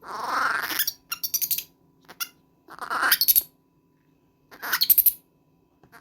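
Baby monkey screaming in four or five shrill bursts of about half a second to a second each, with short gaps between them.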